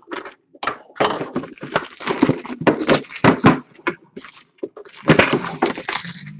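Trading card packaging being handled and opened: a dense run of clicks, rustling and light knocks, pausing briefly a little past the middle before a second burst.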